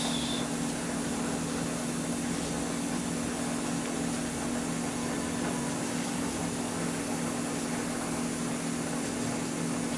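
Steady machine hum with a low droning tone over a faint hiss, unchanging throughout.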